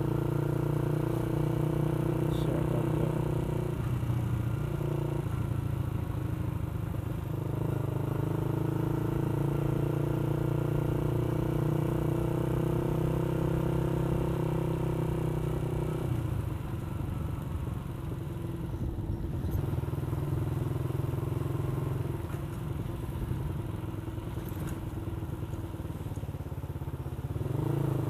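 Motorcycle engine running steadily as the bike is ridden. The engine note drops about halfway through and rises again near the end.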